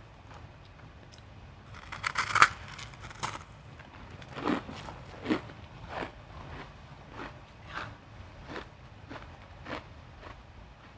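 A bite into refrozen crushed ice with a loud crackling crunch about two seconds in, then steady chewing, a crunch about every two-thirds of a second, getting quieter as the ice is ground down.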